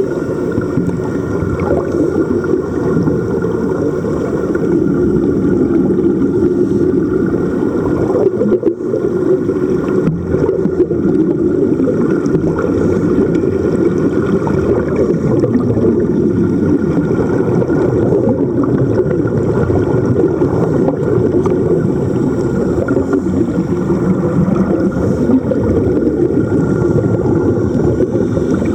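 Motorboat running under way at sea: a steady low rumble of engine and water with faint engine tones above it.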